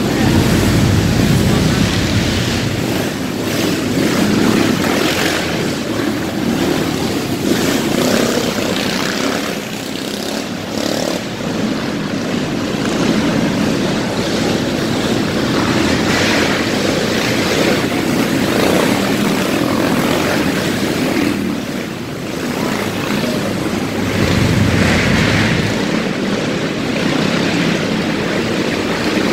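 Several racing kart engines running on an indoor dirt oval, a steady drone that swells and eases every few seconds as the karts come round.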